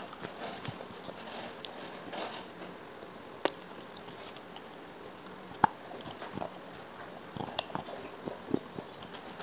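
Crisp bites and crunches of a small painted clay pot being bitten close to the microphone: scattered sharp snaps, the loudest about halfway through, with a quick run of smaller crunches near the end.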